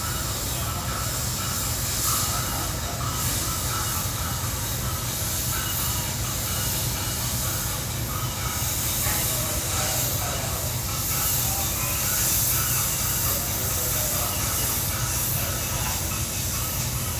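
Steady rushing, hiss-like noise over a constant low hum: the running machinery of a small tanker ship, with air and water noise, while it drifts slowly with the main engine stopped.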